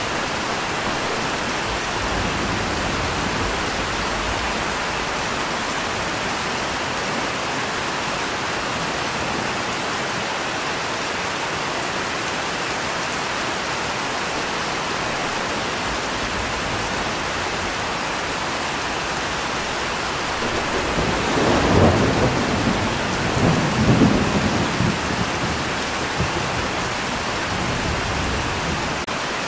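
Steady rain falling. About twenty-one seconds in, a roll of thunder rumbles for several seconds, swelling twice before it fades.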